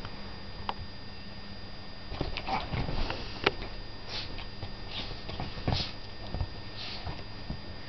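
A chihuahua scrambling and pouncing on a cushioned leather sofa while playing with a toy: scattered soft thumps and knocks with brief rustling, busiest in the middle of the stretch.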